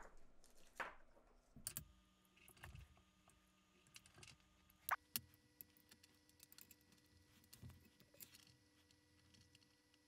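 Mostly near silence with faint, scattered clicks and taps of hands handling a thin cable and small tools on a workbench.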